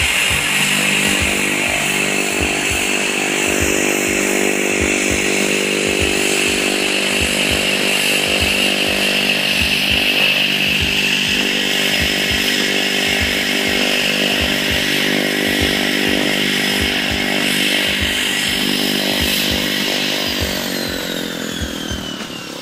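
An engine running at a steady, unchanging pitch, with irregular low buffeting of wind on the microphone; the engine sound fades away near the end.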